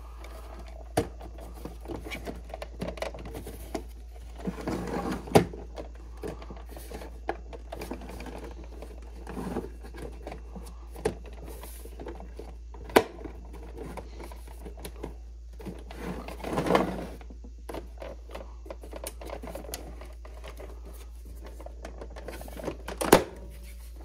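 Plastic outer case of a Keurig K-Supreme coffee maker being worked back onto the machine by hand: irregular plastic clicks, creaks and rubbing as its tabs are eased into place, with a few sharp snaps scattered through.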